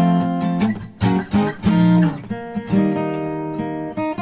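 Acoustic guitar music: plucked notes and chords ringing out, with a new chord about every second.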